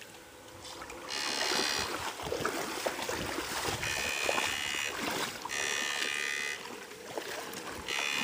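Susan 1030 electrofishing shocker buzzing in four separate bursts of about a second each as it is triggered in the water, over continuous water sloshing.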